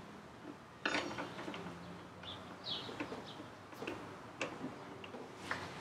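Faint clicks and rustling from hands working a rubber vacuum hose, zip ties and plastic fittings in a car's engine bay, with a few sharp clicks about a second in, near the middle and near the end. A bird chirps a few times in the background.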